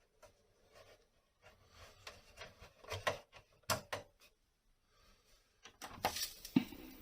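Scattered clicks and knocks of small computer hardware being handled and connected to a Commodore 64, with a louder cluster of clicks near the end, followed by a steady low hum.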